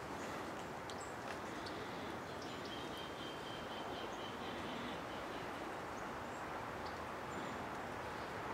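Wood pellets burning in a Solo Stove Campfire: a steady rushing of the flames with a few faint crackles.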